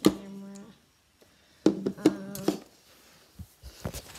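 A girl's voice: one word at the start, then a short steady-pitched buzzy vocal sound about two seconds in. Near the end come soft bumps and rustles from the phone being moved.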